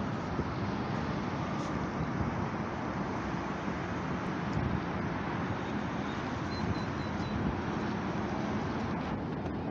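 Wind buffeting the phone's microphone in a steady low rumble, mixed with the wash of surf breaking along the jetty.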